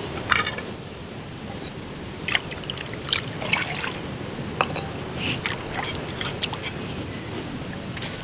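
Water splashing, trickling and dripping as an earthenware plate is rinsed out by hand, in irregular small splashes that come thickest in the middle.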